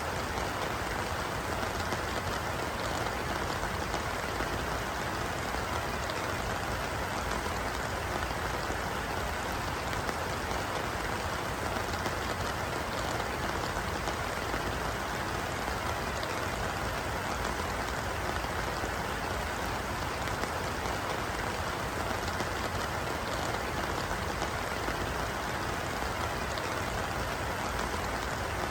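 Steady rain falling on a pond, a dense even patter of drops hitting the water surface without letup.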